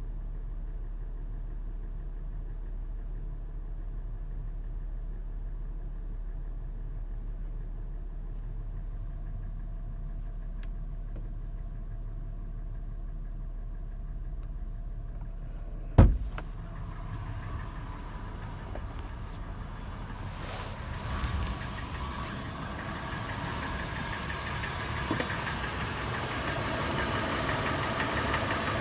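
Warm FJ engine idling steadily with a tapping, clattering sound at idle that the owner is trying to trace. About halfway through there is one sharp loud knock, after which the engine sounds brighter and grows louder.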